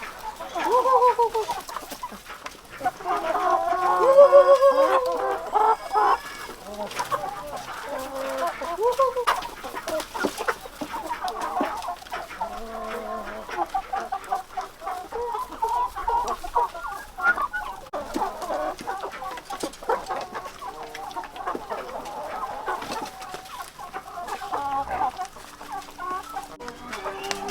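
Chickens clucking over and over, with a louder, drawn-out call about four seconds in.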